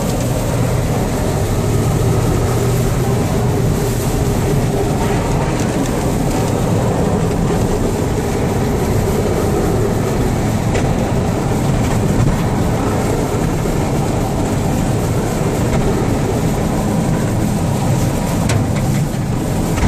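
Snowplow truck driving with its front blade pushing snow, heard from inside the cab: a steady engine drone mixed with the constant rumble and rush of the blade working through snow.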